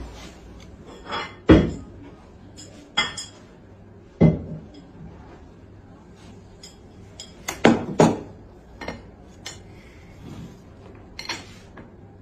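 Separate knocks and clinks of cutlery and dishes on a dining table, a dozen or so spaced a second or more apart, several with a dull thud to them.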